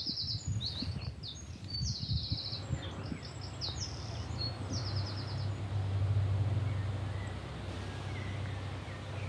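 A small songbird singing short, high, repeated trilled phrases through the first few seconds, over a steady low outdoor rumble that swells in the middle and then eases.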